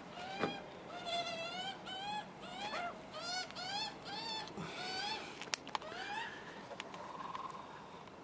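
Juvenile Australian magpies begging for food: a quick, steady run of short, rising, nasal calls, about three a second, for about five seconds. Two sharp clicks follow near the end.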